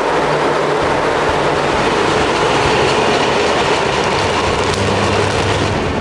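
Electric train on a 25 kV overhead-line test section rolling past at close range: a steady, loud rolling noise of wheels on rail.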